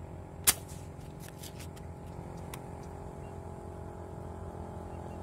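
Air rifle fired once: a single sharp shot about half a second in, followed by a few faint clicks over the next two seconds, over a steady low background rumble.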